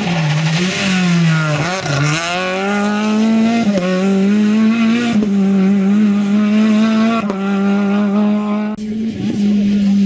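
Rally car engine at high revs, the first a Renault Clio RS. The pitch drops as the driver lifts and shifts about two seconds in, then climbs hard as the car accelerates away and holds high revs.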